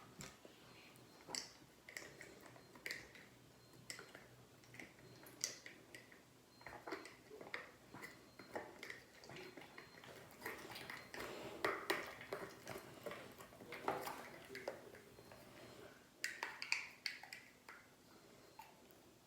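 Poopsie slime being mixed with added scent: faint, irregular wet squishes and small clicks, busiest in the middle.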